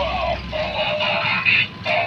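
Electronic music playing from a battery-powered transforming robot train toy's built-in speaker as it converts from locomotive to robot.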